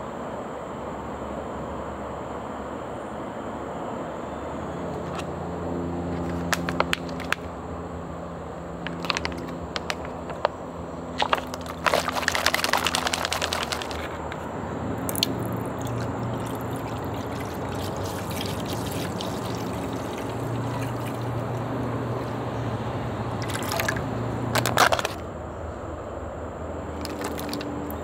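Soup base poured from a plastic pouch into an electric hotpot pan, with the crinkle and click of plastic packaging being handled. The densest stretch of pouring and crinkling comes a little before halfway, and there is a short clatter near the end.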